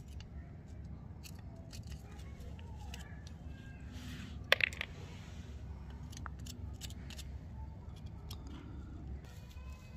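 Small metal tools clicking and scraping against a rusty steel revolver frame as parts are pried and unscrewed, with one sharp metallic ping about four and a half seconds in. A steady low hum runs underneath.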